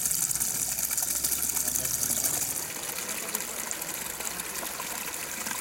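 Water running and splashing down a small rocky garden stream, a steady rushing hiss that becomes quieter about two and a half seconds in.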